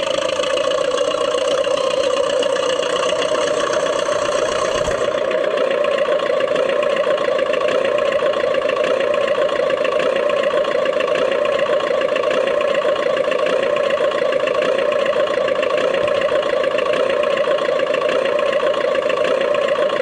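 Radio-controlled model DT-54 bulldozer running, a steady engine-like drone with a constant mid-pitched hum. About five seconds in the sound changes abruptly, its highest and deepest parts dropping away, then runs on the same.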